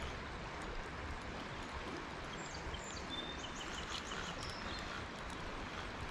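Steady outdoor background noise on a riverbank, with a few faint, high bird chirps about halfway through.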